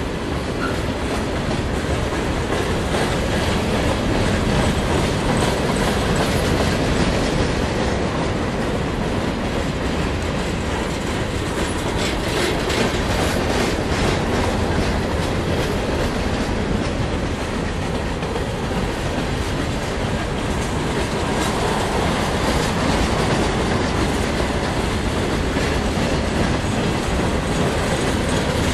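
Freight train cars rolling past: the steady rumble and clatter of steel wheels on rail, with repeated clicking as the trucks cross rail joints.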